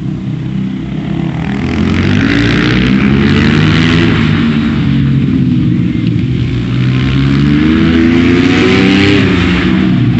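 Supermoto motorcycle engines revving up and down through the gears as the bikes ride past. The sound swells loudest twice, about three seconds and about nine seconds in.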